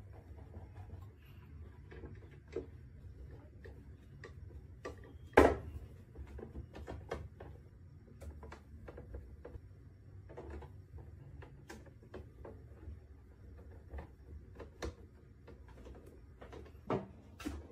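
Scattered small clicks and knocks of plastic and metal computer parts being handled during a repair, with one louder knock about five seconds in, over a low steady hum.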